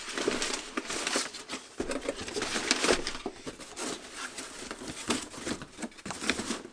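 Crumpled brown packing paper rustling and crinkling as it is handled in a cardboard box, with sharp crackles and the scrape and knock of cardboard flaps; it dies down near the end.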